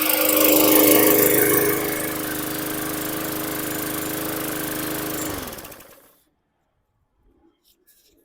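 Bolens push mower's Briggs & Stratton 450E single-cylinder engine running after being primed and started. It is louder for the first couple of seconds, then runs steadily before winding down and stopping about five and a half seconds in.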